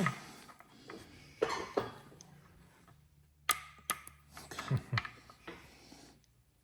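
A few scattered light clicks and knocks of hand tools and metal parts being handled on an engine's camshaft caps, with near-quiet pauses between them.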